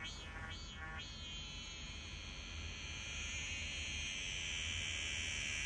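A high-pitched trilling sound effect, like insects or frogs. It opens with a few quick pulsing chirps in the first second, then settles into a steady trill that grows slowly louder.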